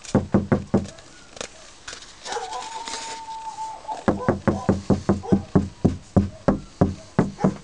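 Knuckles knocking on the inside of a Honda Civic's steel roof panel coated with Elemental Designs paint-on sound deadener, testing how well the coating damps the panel. A quick run of knocks at the start, then after a pause an even run of about three knocks a second.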